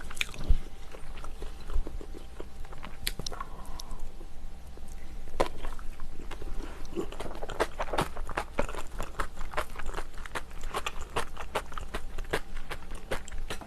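A person eating close to the microphone: chewing with many short, sharp, wet mouth clicks scattered through the stretch.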